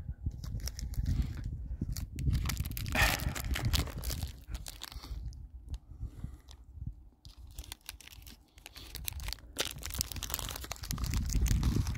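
Plastic snack wrapper crinkling and crackling as it is handled and torn open, loudest about three seconds in and again near the end, over a low rumble.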